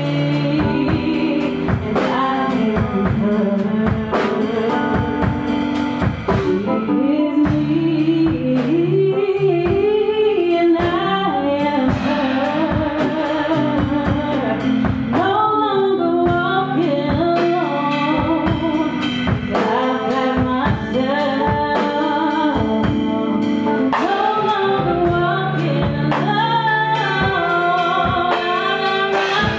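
A woman singing a song with a live band: electric keyboard chords and a Premier drum kit keeping a steady beat.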